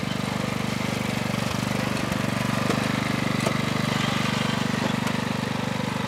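Craftsman riding lawn tractor's engine running steadily while the tractor drives along, a fast, even throb with a few light clicks over it.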